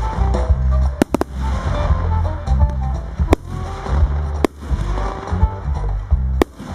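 Aerial firework shells bursting in about five sharp reports, two in quick succession about a second in, over loud music with a heavy bass line.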